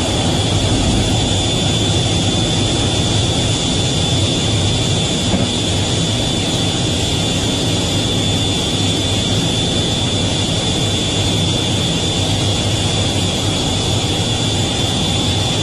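F/A-18's twin jet engines and rushing airflow heard from inside the cockpit in steady flight, a constant noise with a steady high whine over it.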